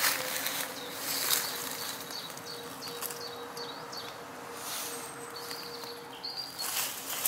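Footsteps rustling through woodland ground cover, coming as a few louder swishes. In the middle a small bird sings a quick run of short, high chirping notes.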